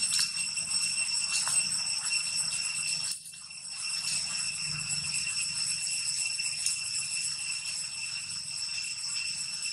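Cicadas buzzing in a steady, high-pitched drone that briefly drops out about three seconds in.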